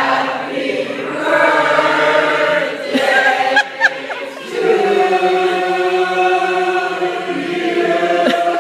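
Mixed choir of men and women singing together under a conductor, moving through a phrase and then holding a long chord through the second half.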